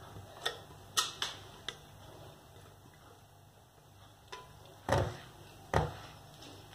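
A spoon knocking and scraping against plastic bowls as thick cream mixture is scraped out into a plastic container. It gives a few scattered light clicks, with the two loudest knocks near the end.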